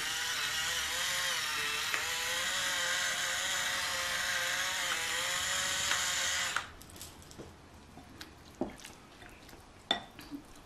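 Battery-powered electric pepper grinder running, grinding peppercorns: a steady small-motor whine with a rasping grind, wavering slightly in pitch, that cuts off abruptly about six and a half seconds in. Faint scattered taps follow.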